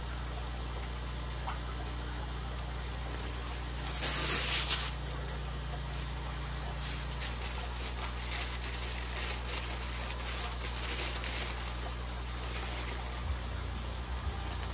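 Packaging being handled while model train cars are unpacked. There is a loud crinkling rustle about four seconds in, then lighter rustles and small clicks, over a steady low hum.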